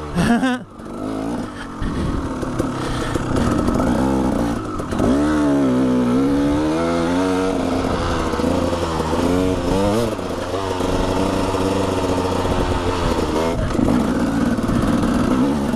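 KTM 300 two-stroke dirt bike engine under way on a trail, its pitch rising and falling as the throttle is worked, with a short dip in loudness just after the start.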